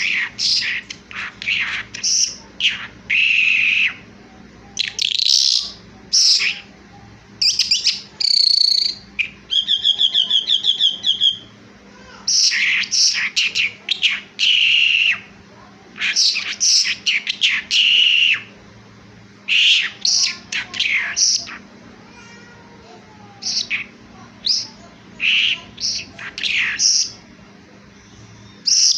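Skylark singing: phrases of short chirps and sweeping whistled notes with pauses between them, including a fast rattling trill about ten seconds in.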